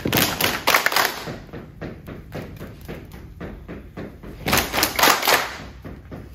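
A group of girls stamping and clapping in rhythm on a wooden floor, about four hits a second, with two louder, noisier bursts, one near the start and one about five seconds in.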